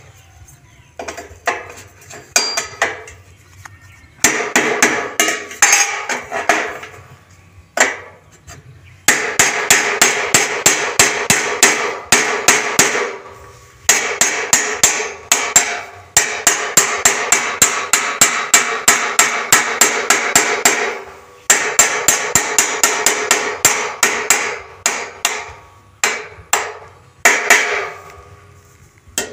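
A hammer striking steel in long runs of quick, even blows, about three to four a second, with the metal ringing between blows and brief pauses between runs.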